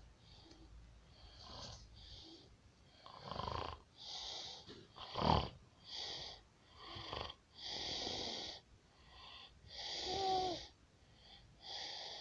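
A pig snoring: a run of wheezy, hissing breaths about one a second, with a sharper snort about five seconds in and a short squeaky whistling note about ten seconds in.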